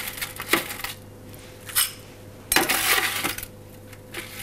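Crushed ice scooped and tipped into a short tumbler glass, a rattling clink of ice against glass. There are a couple of small clinks, then a longer, louder pour about two and a half seconds in.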